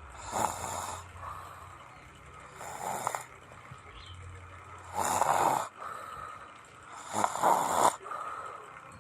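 A person snoring: four snores about every two and a half seconds, the later ones the loudest.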